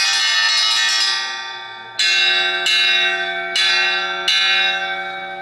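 Traditional railway station bell: a continuous ringing fades away over the first second or two, then the bell is struck four times, each stroke ringing out with bright metallic overtones and dying away slowly.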